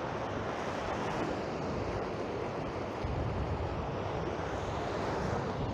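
Steady wash of sea waves with wind buffeting the microphone, the low wind rumble growing stronger about halfway through.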